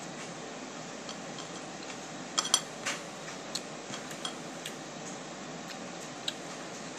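Eating sounds from hand-eating off a plate: a few scattered sharp clicks and taps, loudest a quick pair about two and a half seconds in, over a steady hiss.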